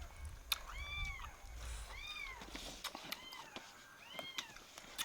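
A kitten meowing repeatedly: about five short calls, each rising and then falling in pitch, with a few sharp clicks between them.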